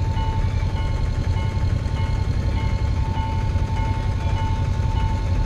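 Railway level crossing warning alarm sounding: a steady ringing tone with a higher electronic chime repeating a little under twice a second, over a low rumble.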